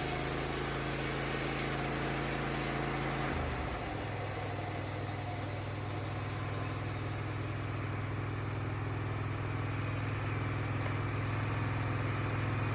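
Wood-Mizer LT15 sawmill's engine running steadily, its note changing to a different speed about three and a half seconds in.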